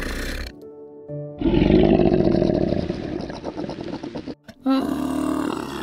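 A large animal roaring or growling: a loud, rough, pulsing sound about three seconds long, then a shorter call that wavers in pitch. Music stops just before it.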